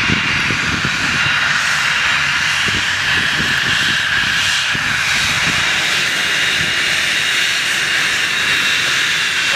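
Cessna Citation 560XL business jet's twin turbofan engines at taxi power as the jet taxis close by: a steady high whine over a hissing rush.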